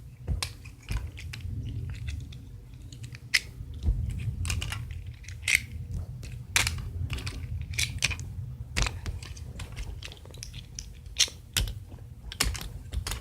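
Clip-on plastic dresses being unclipped from small princess dolls one after another: irregular sharp plastic clicks and snaps with handling rustle, over a low rumble of handling noise.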